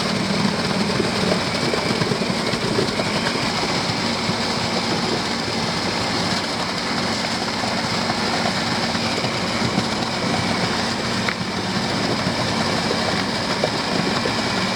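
Steady, continuous machinery noise from a concrete pour, with a low engine hum: the concrete pumper truck and concrete vibrator running.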